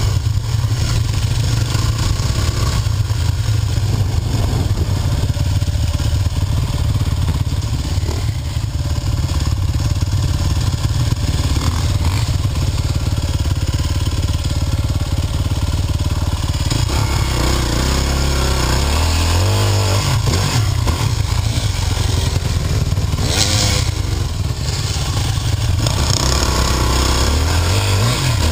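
Dirt bike engine running under way on a trail, heard close up from the bike-mounted camera, steady for the first half and then rising and falling a few times in the last third as the throttle is worked.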